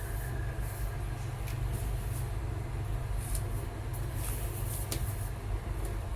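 Steady low rumble with a few faint, short clicks.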